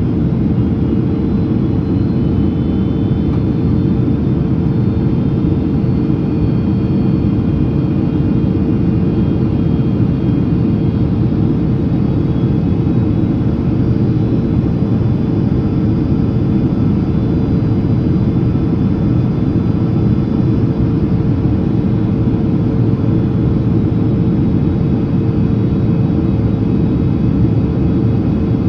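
Steady cabin noise of a Boeing 767-300ER airliner on approach: a deep, even rumble of engines and airflow with a constant hum.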